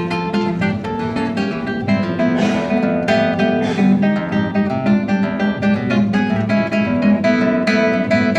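Acoustic guitar playing an instrumental piece: a quick, continuous run of plucked notes over chords.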